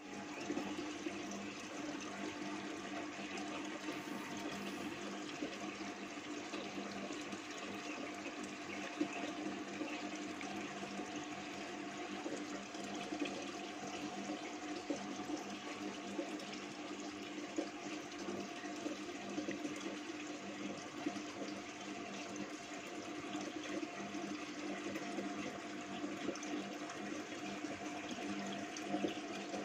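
Aquarium filter running: a steady rush of moving, splashing water over a constant low hum.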